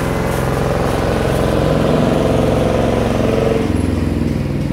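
An engine running steadily close by, its note shifting about three and a half seconds in.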